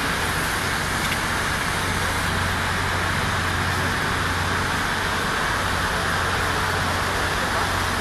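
Steady outdoor background noise: an even hiss with a low hum underneath, unchanging throughout.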